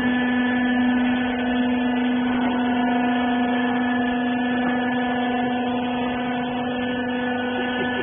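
Hydraulic cloth-rag baling press with its hydraulic pump running, a steady hum held at one pitch.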